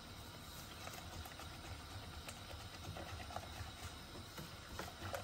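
Faint swishing and a few light taps of a silicone-coated whisk stirring a thin liquid mixture in a glass bowl.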